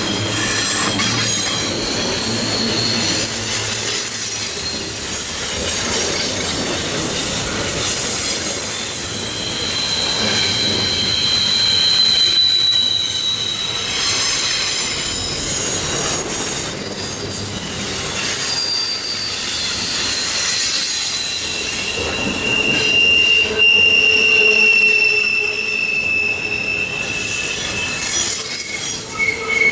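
Wheels of a CN intermodal freight train squealing against the rail on a sharp curve as the cars roll past. Several high, drawn-out squeal tones come and go and shift in pitch over the continuous rumble of the wheels.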